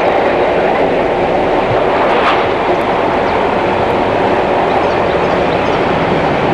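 A yellow self-propelled track maintenance machine running steadily along the rails as it approaches, its engine and wheels making a continuous rumbling noise. There is one brief sharper sound about two seconds in.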